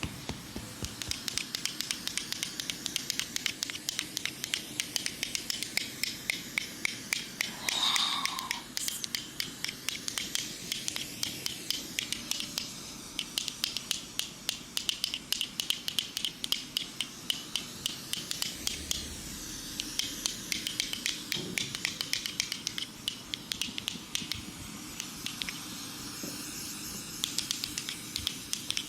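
Close-miked ASMR object sounds: crisp scratching and tapping clicks, a few a second, over a soft hiss, with a brief squeak about eight seconds in.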